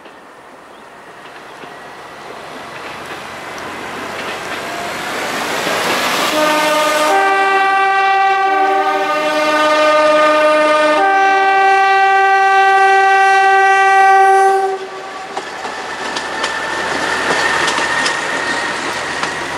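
Billard A150D diesel railcar approaching, its running noise growing louder, then sounding its two-tone horn for about eight seconds, alternating between a low and a high note. After the horn stops it runs on, with the wheels ticking over the rail joints near the end.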